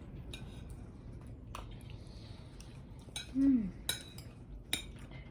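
Cutlery clinking and scraping against plates and bowls during a meal, a handful of separate sharp clinks with a short ring. About three seconds in, a brief murmured voice sound falling in pitch is the loudest thing.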